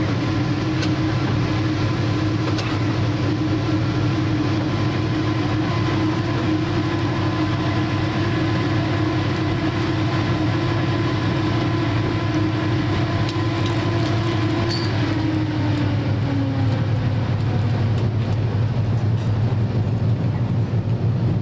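Fishing boat's engine running with a steady drone; about fifteen seconds in its tone slides a little lower as the engine slows.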